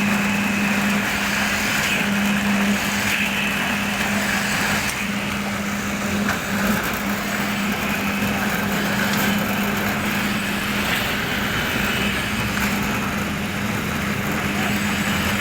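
Concrete poker vibrator running steadily with a constant hum, consolidating freshly poured concrete.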